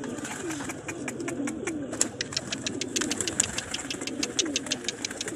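Domestic pigeons cooing, a series of low rolling coos one after another, with a rapid run of sharp clicks or taps over them that grows stronger about two seconds in.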